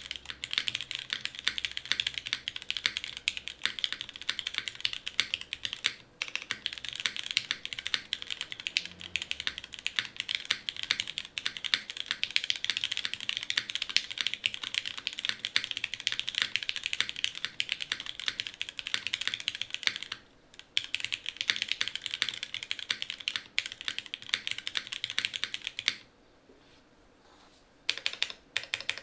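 Typing on a Geonworks F2-84 mechanical keyboard with an aluminium plate, lubed and filmed Cherry MX Black Hyperglide linear switches and GMK keycaps: a fast, continuous clatter of keystrokes. There are brief breaks about 6 and 20 seconds in, and a longer stop about 26 seconds in before the typing resumes.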